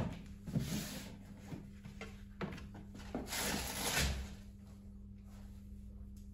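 A shoebox set down on a steel counter with a sharp knock, then its lid lifted off and the wrapping paper inside rustling as a leather loafer is unwrapped and lifted out, with scattered small knocks of handling. A steady low hum runs underneath.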